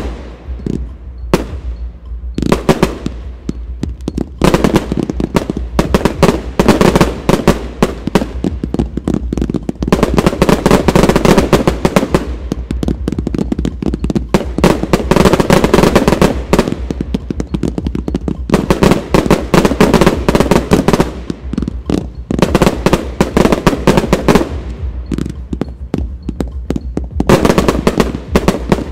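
Closing fireworks display: a dense barrage of aerial shells launching and bursting, bangs and cracks following in quick succession with a few brief lulls.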